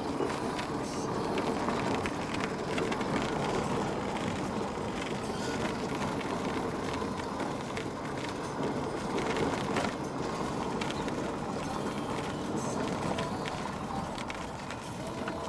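Car driving on an unpaved sandy gravel track, heard from inside the cabin: a steady rumble of tyres and suspension on the rough surface, with scattered small ticks of grit and stones.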